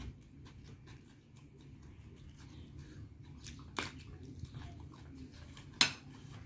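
A person chewing a mouthful of food eaten by hand, with small wet mouth clicks. Two sharp clicks stand out, about four and six seconds in.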